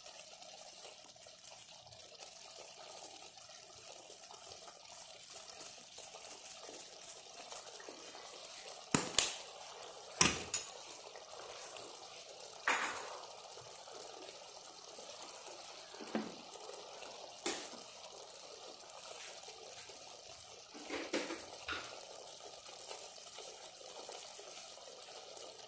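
Pot of chicken and white-bean stew in tomato sauce simmering, a faint steady hiss broken by a few short, sharp pops and knocks, the loudest about nine and ten seconds in.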